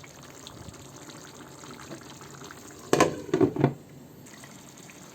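A pot of beef liver and heart simmering in its own juices with a faint steady bubbling. About three seconds in, a quick clatter of four or five knocks as the lid goes back on the pot.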